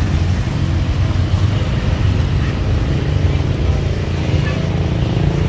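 Steady low rumble of street noise, with faint voices in the background.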